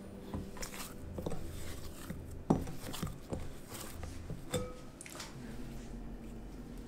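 Hands kneading glutinous rice flour dough in a glass bowl: soft rubbing and squishing, with scattered knocks of fingers and dough against the glass. The sharpest knock comes about two and a half seconds in, and another with a brief ring about four and a half seconds in.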